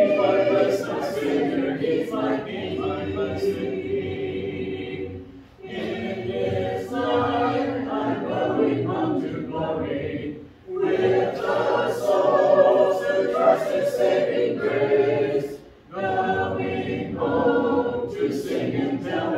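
Congregation singing a hymn a cappella, unaccompanied voices together, in phrases of about five seconds with brief breaks between them.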